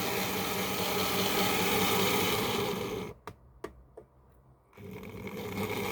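Steady mechanical hum in the background, which cuts out abruptly about three seconds in, leaving near silence broken by a few sharp clicks, then comes back about a second and a half later.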